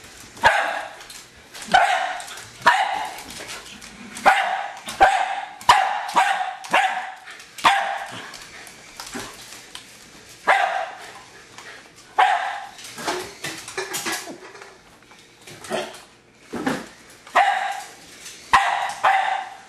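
Jack Russell terrier barking over and over at a remote-controlled toy car, a bark every second or so in runs with short pauses.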